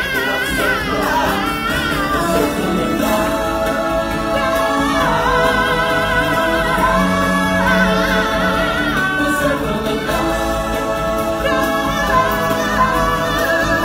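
Live show music: singers holding long notes with vibrato, with a choir-like ensemble over amplified backing music.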